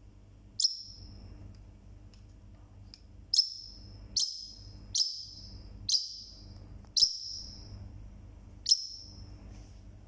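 Caged parrotlet (Forpus) giving seven short, sharp, high-pitched calls at uneven intervals, each cut short with a brief tail; one bird, very loud.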